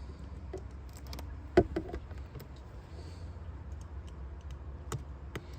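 Scattered light clicks and taps of small tools and parts being handled during an iPad screen repair, with one sharper click about a second and a half in, over a steady low hum.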